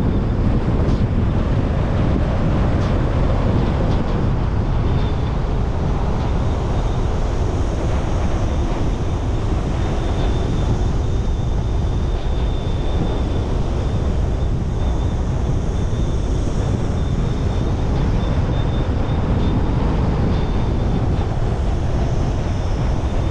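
A car driving steadily, with a constant low rumble of road and tyre noise and wind buffeting the microphone. A faint, thin high tone comes and goes through the middle.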